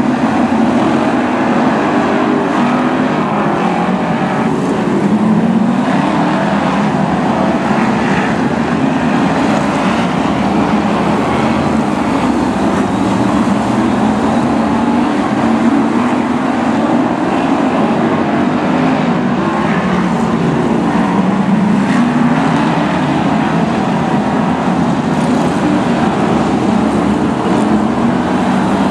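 A pack of BriSCA F1 stock cars racing, their V8 engines running together in a constant loud din that rises and falls in pitch as the cars accelerate and lift off.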